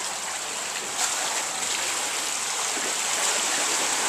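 Pool water splashing and washing in an indoor pool hall as a swimmer pushes off and swims backstroke, heard as a steady hiss of water noise.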